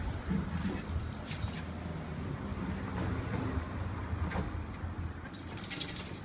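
Maltese dog growling low and steadily as it goes at a stuffed toy, with a brief jingle and clicks near the end.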